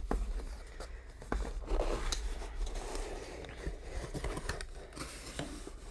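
Hands opening a mailed craft package: packaging and paper rustling, with many small clicks and scrapes.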